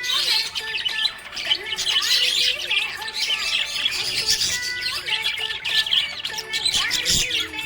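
Budgerigars chirping and chattering continuously in quick high chirps, with background music of held notes underneath.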